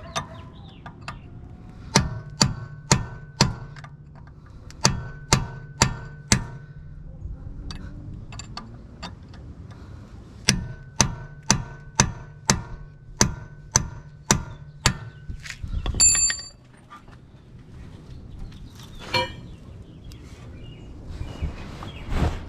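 Hammer striking metal in three runs of blows, about two a second, each blow leaving a ringing metallic tone. A louder single clank comes about 16 seconds in.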